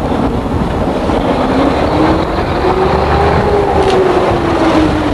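Small boat's engine running steadily with a low rumble, its tone rising slowly and then easing off again.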